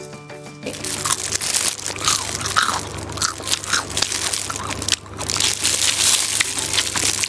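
Crunching of a crisp, deep-fried egg-batter vegetable pancake being broken and bitten into: a dense run of crackles starting about a second in.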